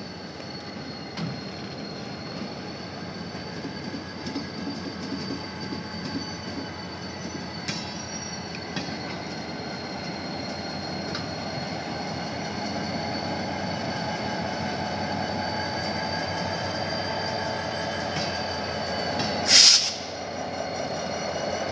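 Harsco rail maintenance train rolling past close by: a steady rumble with a high, even wheel squeal and occasional clicks from the wheels over the rail, growing gradually louder. Near the end comes one short, loud hissing burst.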